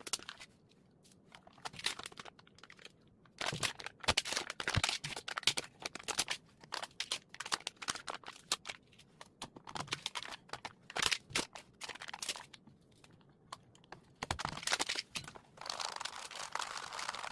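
Close-up handling of small plastic parts: quick irregular clicks and taps, with stretches of crinkly rustling.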